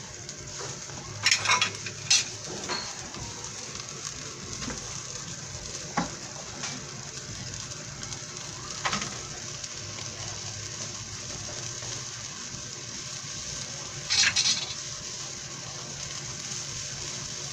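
Chicken liver simmering in sauce in a stainless steel wok: a steady sizzle throughout. A metal ladle clicks and knocks against the pan a few times in the first few seconds, with a short louder clatter about fourteen seconds in.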